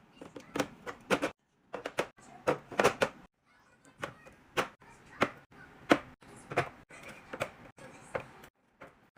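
Items being handled and set down one after another during a restock: a string of light knocks and clicks, irregular at about one or two a second, with faint rustling between.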